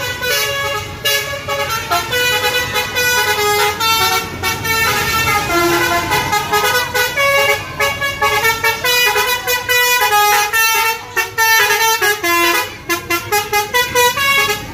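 Bus telolet basuri horn playing a quick melody of short, stepped notes over a low rumble.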